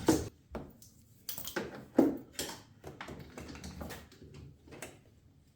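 Scattered clinks and knocks of a battery ground cable and its ring terminal being handled and fitted onto an engine stud, with the loudest knock about two seconds in.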